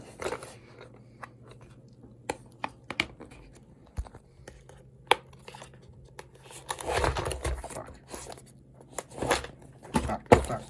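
Cardboard shipping box being cut and torn open by hand: scattered clicks and knocks, with bouts of scraping and tearing about seven seconds in and again near the end.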